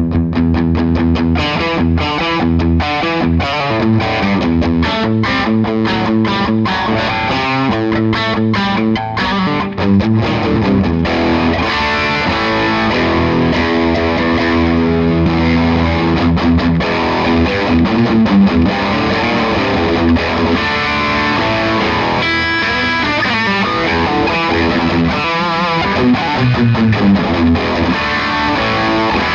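Electric guitar played through a driven amp: fast picked runs for the first ten seconds or so, then held notes and chords.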